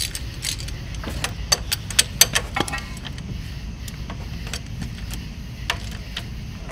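Metal clicks and clinks from a hand ratchet with socket and extension being fitted together and put to work tightening a motor mount bolt. A dense run of sharp clicks comes in the first three seconds, then only a few scattered clicks, over a steady low rumble.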